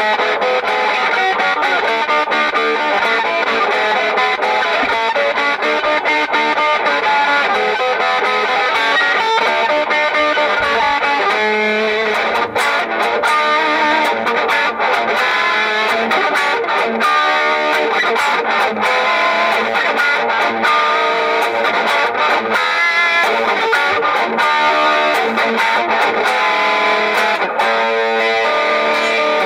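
Electric guitar played through distortion, running through a rock riff. In the second half the chords are cut short by frequent brief stops.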